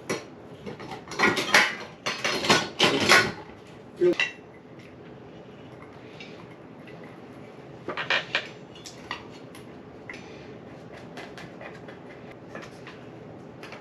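Metal ceiling-fan mounting parts and screws clinking and rattling as they are handled and fitted. There is a dense run of clatter at the start, a single ringing clink about four seconds in, a few more clicks around eight to nine seconds, and then light ticks.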